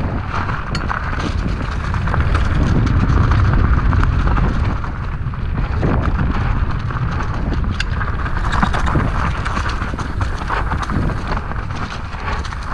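Electric mountain bike riding fast along a dirt singletrack covered in dry leaves: continuous tyre noise over leaves and dirt, with frequent clicks and rattles from the bike and a steady low rumble of wind on the camera microphone.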